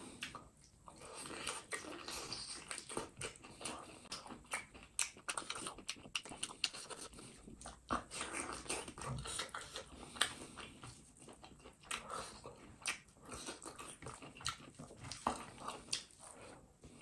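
A man eating curried duck by hand: biting into the meat and chewing with the mouth open, with many quick, irregular wet smacking clicks.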